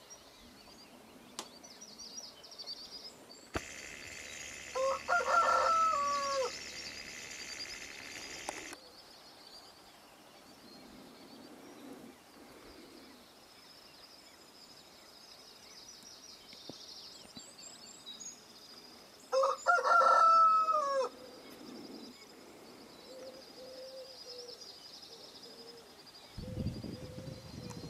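A rooster crowing twice, about fifteen seconds apart, each crow drawn out and falling away at the end. High, thin songbird chirping goes on underneath, with a stretch of hiss around the first crow.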